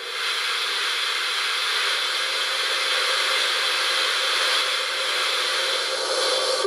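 Sound decoder in an LGB model of an HSB 99 7237-3 Neubaulok steam locomotive playing a loud, steady recorded steam hiss through the loco's speaker. It comes in suddenly and cuts off near the end.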